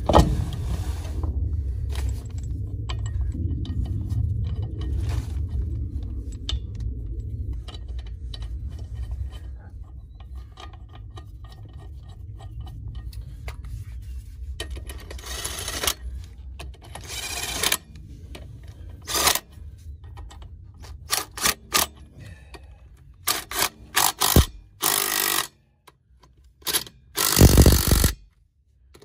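Scraping and clinking of metal parts and tools while axle hardware is fitted under a mobile home, with a low rumble over the first third. In the second half comes a string of short, loud bursts from a power tool running bolts tight.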